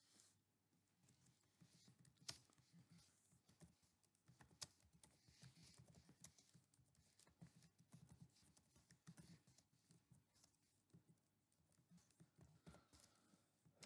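Faint, irregular clicking of a computer keyboard as someone types.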